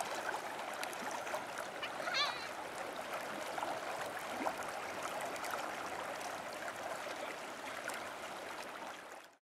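Stream water running steadily, with a short high-pitched cry about two seconds in; the sound fades out just before the end.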